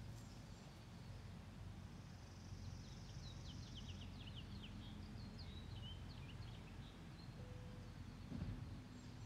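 Quiet outdoor ambience: a small bird sings a quick run of high, short chirps for a few seconds near the middle, over a faint steady low rumble.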